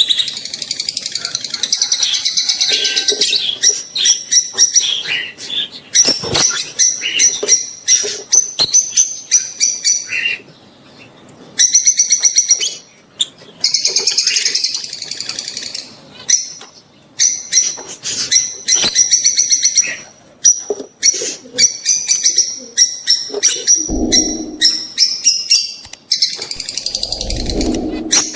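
Peach-faced and Fischer's lovebirds chattering with rapid, shrill chirps and screeches that come in bursts with short gaps: the breeding-season calls of pairs in condition. Two short, low, muffled sounds come near the end.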